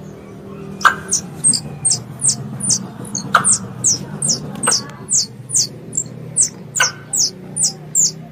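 Squirrel calls used as a lure: a steady run of short, very high chirps, each gliding downward, about three a second, with a few sharper chips among them, over a low background hum.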